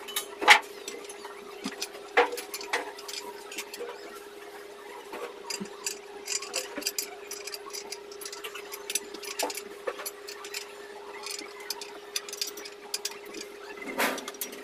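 Scattered light clicks and knocks as a metal TV wall-mount bracket is handled and held against the wall, with a sharper knock about half a second in and another near the end. A steady hum runs underneath.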